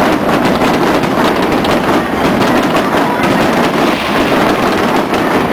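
Aerial fireworks going off in a dense, continuous barrage: rapid overlapping bangs and crackling over a steady rumble, with no pause.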